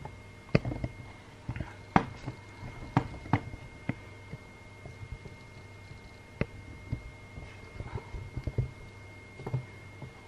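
Irregular light clicks and knocks of objects being handled on a work table, over a steady faint hum with a thin high tone.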